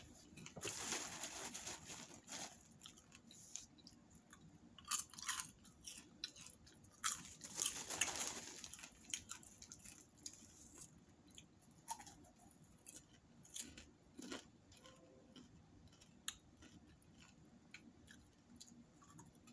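Popcorn being chewed, with many crisp crunches, and the large plastic bag crinkling as a hand digs into it, loudest about a second in and again around eight seconds.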